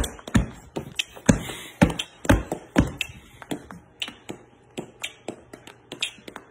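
A run of light, irregular taps and clicks close to the microphone, with soft thumps about every half second in the first three seconds.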